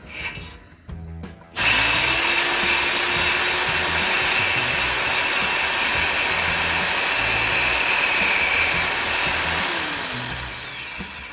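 Electric power tool running for about eight seconds: it comes up to speed abruptly, holds a steady whine under a harsh hiss, and winds down near the end. Background music plays beneath it.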